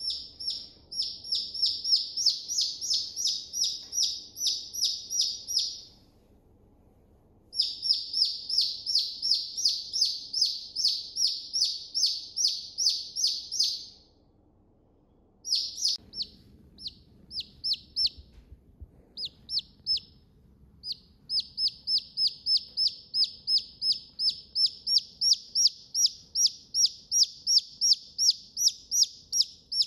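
Domestic chicken chick peeping over and over, each peep a short high note sliding downward, about three a second. The runs break off twice for a second or two, and for a few seconds in the middle the peeps come more sparsely.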